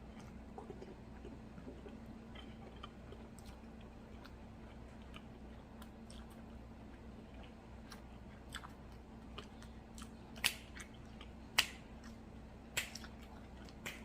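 Close-miked chewing of a fried chicken and waffle sandwich: soft mouth clicks throughout, with several louder wet smacks in the last few seconds.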